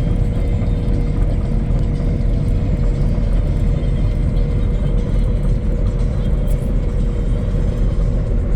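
Mowing machine's engine running steadily, a constant low drone with an even tone held above it and no change in speed.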